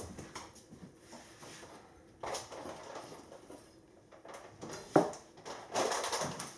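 Seed bags, jar and measuring spoon being handled: soft rustling and scraping, with one sharp click a little before five seconds in.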